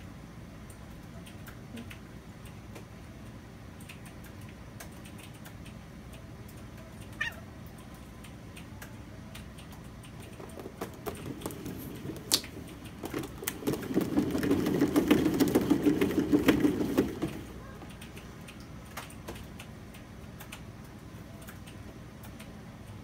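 Large cat exercise wheel turning under a running cat: scattered clicks of paws on the track build into a rapid clatter and low rumble of the wheel rolling on its base, lasting about four seconds before it stops abruptly.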